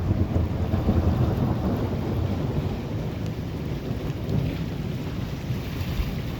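Rolling thunder rumbling low and long, loudest in the first couple of seconds and then slowly easing off.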